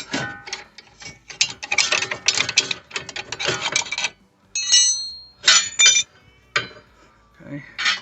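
Brake caliper being pried off the rotor with a screwdriver: a run of metal scraping and clicking, then a couple of ringing metal clinks about five seconds in.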